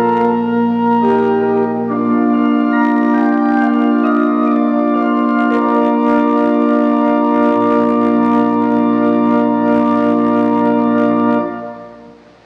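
Pipe organ playing the closing bars of a piece in full sustained chords, ending on a long held final chord. The chord is released near the end and its sound dies away in the church's reverberation.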